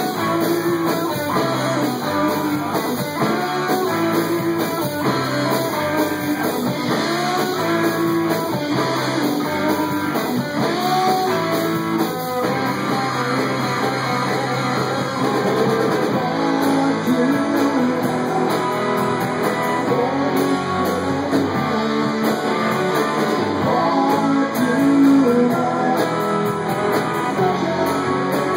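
Live band playing an instrumental stretch led by guitar, with no vocals, steady and full throughout.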